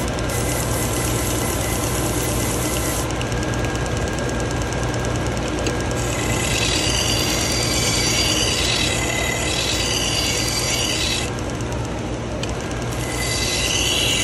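AMK-75 belt sharpener running with a steady motor hum and a belt hiss. From about six seconds in, a Shun kitchen knife's edge is pressed to the abrasive belt in passes, giving a rasping grind. The grind breaks off briefly and starts again near the end.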